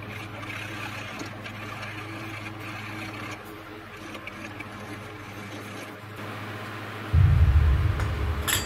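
Hand chisel cutting and scraping out a slot in a wooden block clamped in a bench vise, over a steady low hum. About seven seconds in, a loud low rumble starts, with a sharp click just before the end.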